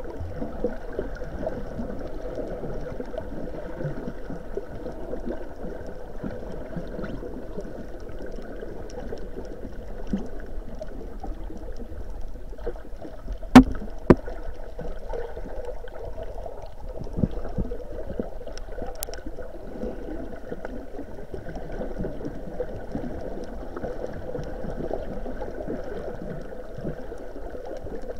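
Underwater ambience picked up by a submerged camera: a steady, muffled water noise with faint crackling throughout. Two sharp, loud knocks come about halfway through, half a second apart, and a fainter click follows a few seconds later.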